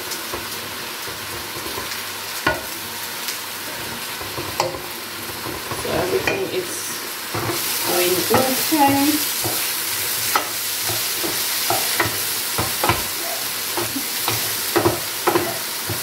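Sliced sausages and mushrooms sizzling in a frying pan as a wooden spatula stirs and scrapes them, with scattered knocks of wood against the pan. Before that a wooden spoon stirs steamed kale in a large pot, and the sizzle gets louder about seven and a half seconds in.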